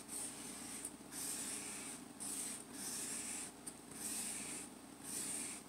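Broad-tip felt marker rubbing back and forth across envelope paper while colouring it in, about six strokes, roughly one a second.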